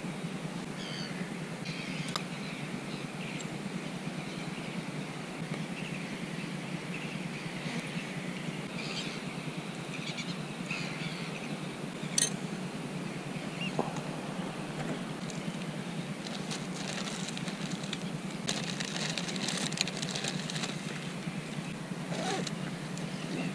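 Small clicks and rustles of fishing tackle being handled, including one sharp click about twelve seconds in, over a steady low hum with scattered faint chirps.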